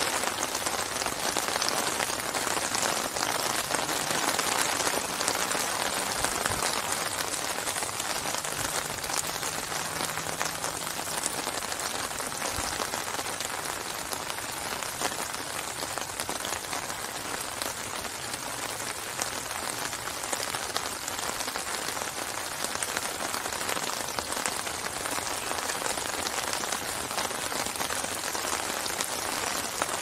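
Steady rain falling on open water: a dense, even hiss of many drops striking the surface, flecked with fine individual ticks.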